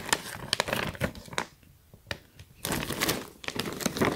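Thin plastic shopping bag crinkling and rustling as hands grab it and open it out, in irregular crackles with a short lull about halfway through.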